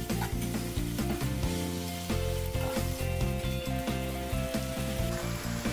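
Sliced pork sizzling in a thin fish-sauce and hoisin coating in a frying pan as it is stirred with a silicone spatula, with short scraping strokes. Background music with sustained chords plays over it.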